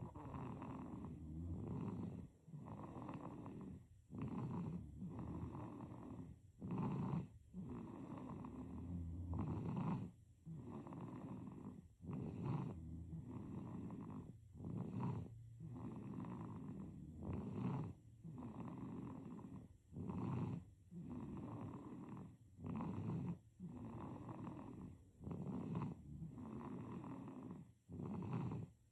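Baby snoring in sleep: rhythmic rasping breaths, one about every second and a half, each separated by a brief pause.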